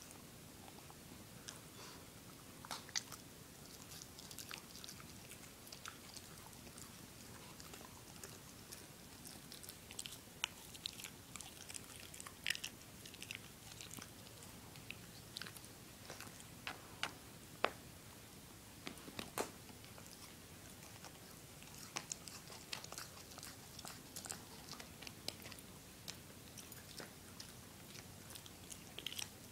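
A small dog gnawing and chewing a rawhide chew: irregular crunching and clicking of teeth on the hide, coming more often after about ten seconds in.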